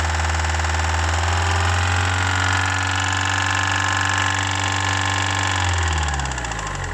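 Vehicle engine running steadily at a fixed speed, then winding down near the end as its speed falls away. This is the engine whose owner reports that it rattles when given gas.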